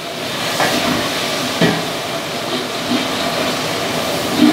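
Onions and ginger-garlic paste sizzling steadily in hot oil in a large pot as they fry off the paste's raw smell. A long-handled ladle stirring through them knocks against the pot now and then.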